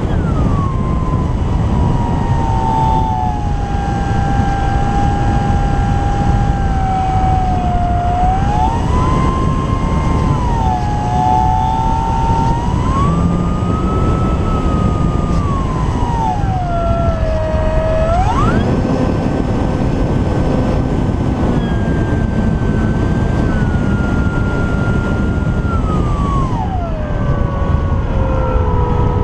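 Electric motor and propeller of an Apprentice S 15e RC trainer plane in flight: a strong whine that rises and falls in pitch, jumps up sharply about two-thirds of the way through and drops near the end. Steady rumble of wind on the camera underneath.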